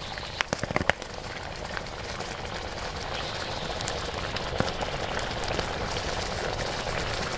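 Quicklime slaking in a steel basin of water: the wet lime hisses and crackles as it heats up and boils, growing gradually louder, with a few sharp clicks in the first second.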